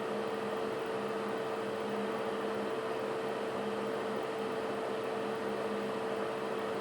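Bathroom ceiling exhaust fan running steadily: an even rush of air with a constant mid-pitched hum.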